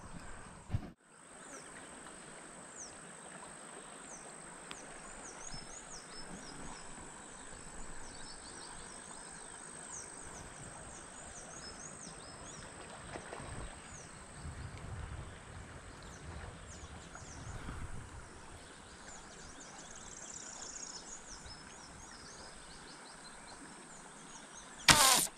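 Steady high insect drone with scattered bird chirps and some low handling rumble. Near the end comes one short, sharp, loud snap as a slingshot rifle fires a stainless-steel fishing arrow.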